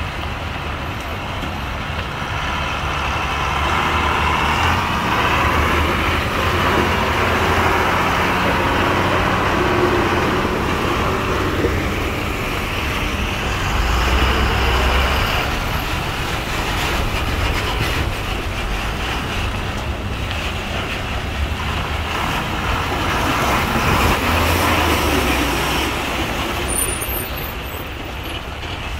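A truck's engine running as it drives along the road, with steady road noise.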